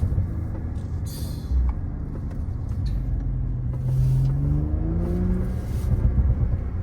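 Audi car engine and exhaust running while driving: a steady low drone, then rising in pitch as the car accelerates about four seconds in.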